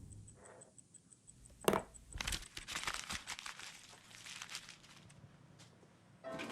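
Quiet handling sounds: a sharp click about 1.7 s in, followed by a few seconds of light rustling and small clicks.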